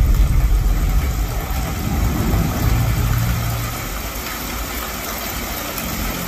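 Demo-trailer soundtrack played through a home-cinema system with four Definitive Technology DN12 subwoofers: a loud, deep bass rumble that fades over the first few seconds into a softer, hissy ambience.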